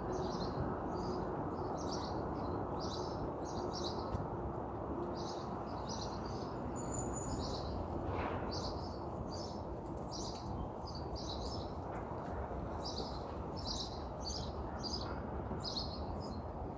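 Small birds chirping: many short, high chirps repeated about two or three times a second, over a steady low background noise.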